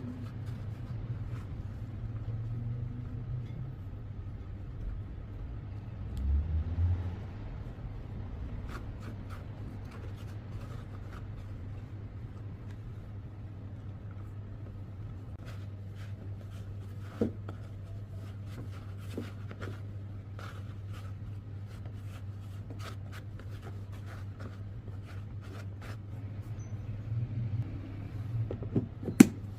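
Light clicks and taps of kitchen handling over a steady low hum, with a dull thump about six seconds in and a few sharper knocks near the end.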